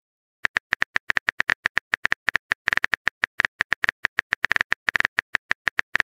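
Smartphone on-screen keyboard typing clicks: a rapid, uneven run of short taps starting about half a second in, the typing sound of a message being composed in a chat app.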